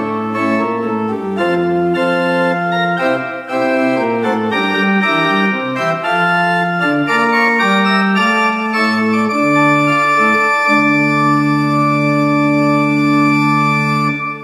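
Historic English pipe organ, with parts possibly as early as 1780, playing a chordal passage with the chords changing every half second or so. It settles into one long sustained chord for the last few seconds.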